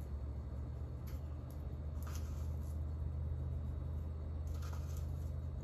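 A few soft, brief rustling shakes of dry mixed spices sprinkled from a small container over chicken strips in a casserole dish, over a steady low hum.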